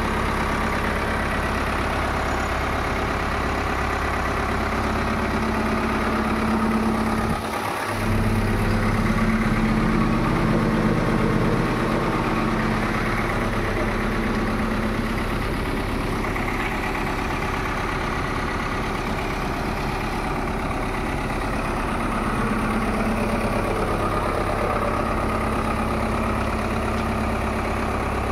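Diesel engine of a Case 1107 vibratory soil compactor idling steadily. It dips briefly about seven and a half seconds in, then runs a little louder for a few seconds.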